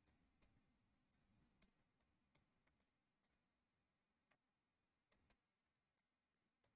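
Near silence broken by a handful of faint, scattered clicks of a computer mouse, a couple of them in quick pairs.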